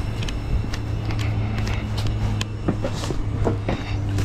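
A vehicle engine running with a steady low drone, with scattered light clicks and knocks over it.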